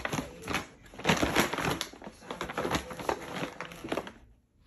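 A cat rolling and scrabbling inside a paper shopping bag, the paper crinkling and rustling in irregular bursts, then falling quiet near the end.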